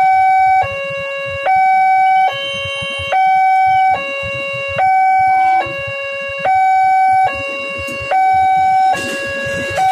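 Railway level-crossing warning alarm sounding its two-tone signal, switching back and forth between a higher and a lower tone, each held for under a second, to warn that a train is coming. Near the end the noise of an electric commuter train rolling onto the crossing rises under it.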